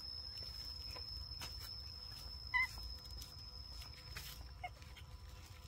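A baby macaque gives a single short, high squeak about halfway through, with a fainter second squeak a couple of seconds later. A steady high-pitched whine sounds underneath and fades near the end.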